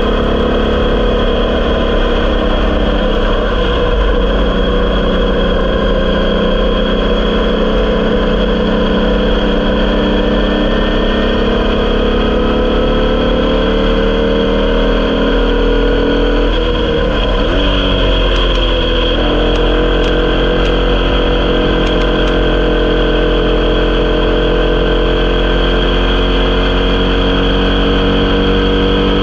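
Onboard sound of a Formula Vee's 1200cc air-cooled VW flat-four engine running hard under load. Its pitch climbs slowly, then briefly dips and recovers about two-thirds through as a gear is changed, and climbs again. Steady wind and road rumble sit underneath.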